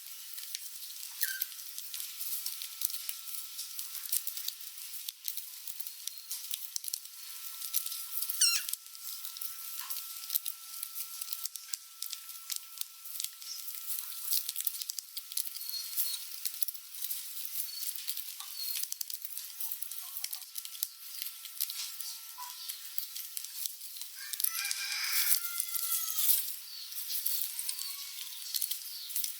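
Rats scuffling and biting each other over food: a constant crackling rustle of small clicks, with a few short high squeaks. One squeak sweeps up steeply about eight seconds in, and a cluster of squeaks comes near the end.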